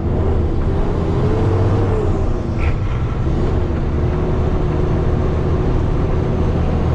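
Dump truck's diesel engine running as the truck drives off, heard inside the cab: a steady low rumble under a whine that wavers slightly in pitch. A short, sharp higher sound comes about two and a half seconds in.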